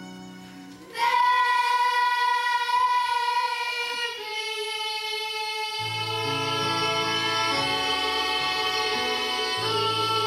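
A girl singing a long held note over instrumental accompaniment; quiet held chords come first, the voice enters loudly about a second in, and lower bass notes join beneath it around six seconds in.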